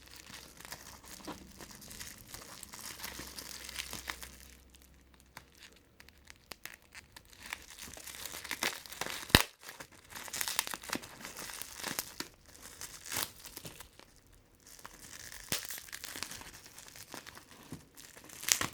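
Packaging wrap being crumpled and torn open by hand, crinkling and ripping in spells with a sharp click about halfway through and another near the end.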